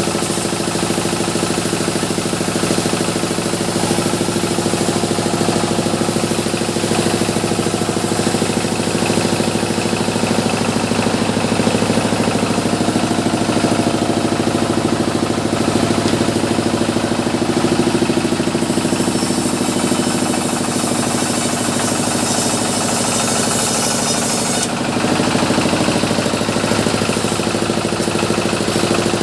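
Sawmill machinery running steadily, with a constant engine-like hum and a higher hiss that grows louder partway through and drops back a few seconds later.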